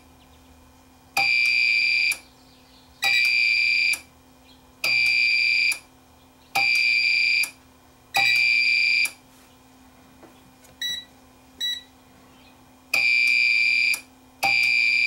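Uninterruptible power supply's alarm beeper sounding a repeated high-pitched beep, each tone just under a second long and coming about every second and a half to two seconds. The beeping breaks off briefly about two-thirds of the way through, with two short faint blips, then resumes.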